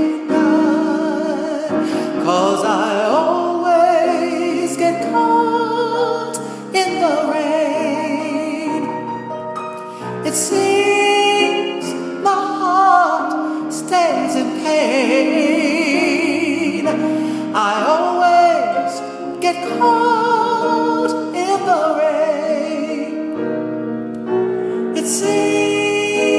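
A solo singer's voice with vibrato, holding and bending notes over solo piano accompaniment.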